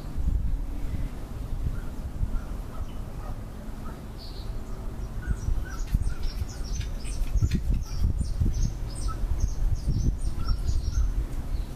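Birds calling outdoors: scattered short chirps throughout, then a busy run of short, high calls from about five seconds in until near the end, over a low, gusting rumble.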